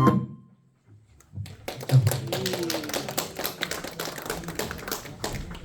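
Music cuts off, then after a short pause a dense, irregular run of sharp taps and clicks starts about a second and a half in and carries on.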